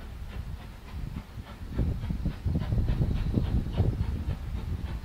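Steam locomotive working a train, its exhaust beats coming in a quick, even rhythm over a low rumble, growing louder about a second and a half in.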